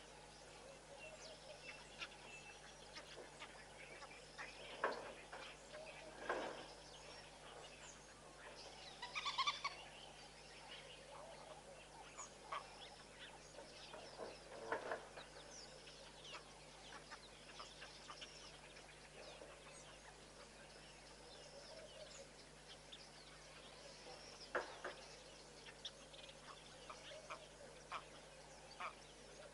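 Scattered bird calls and chirps over a faint outdoor background, the loudest cluster about nine seconds in, with a faint steady low hum beneath.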